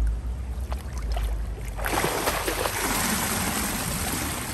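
Pool water splashing and churning as a swimmer ducks under and tumbles through an underwater somersault. The splash starts suddenly about two seconds in and keeps going.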